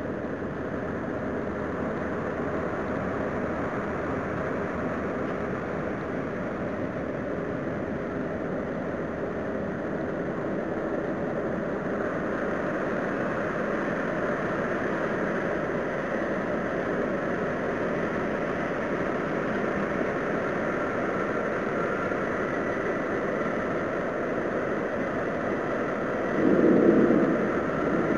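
A steady, low rumbling roar, like a distant train, heard outdoors at night and of unknown origin. Faint held tones sit above it in the second half, and it swells louder for about a second near the end.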